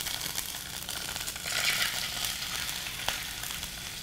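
Wet peeled hard-boiled eggs sizzling and spattering in hot mustard oil in a stainless-steel skillet. The crackle swells about a second and a half in, as another egg goes into the oil.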